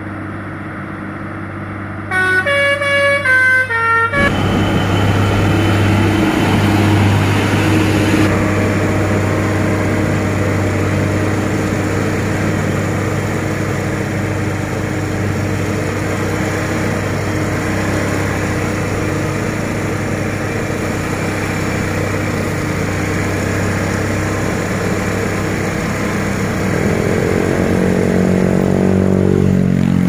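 A Basuri telolet musical truck horn plays a quick run of stepped notes for the first few seconds. Then a heavy truck's engine runs steadily for a long stretch, with a low hum under road noise. Another run of horn notes comes near the end.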